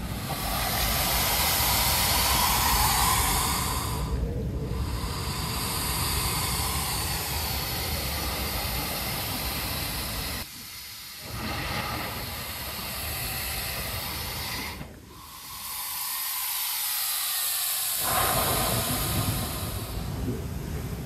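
Heavy ocean surf breaking and churning over lava rocks, a continuous rushing hiss of waves and spray, with wind rumbling on the microphone.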